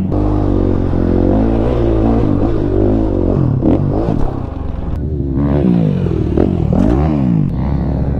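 Dirt bike engine running and revving, its pitch steady at first, then rising and falling repeatedly over the last few seconds.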